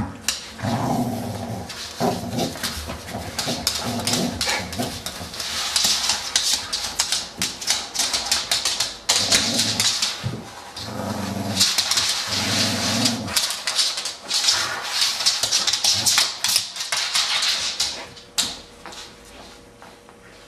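A dog vocalising in short bursts during play, amid many clicks and hissy noises. It quietens near the end.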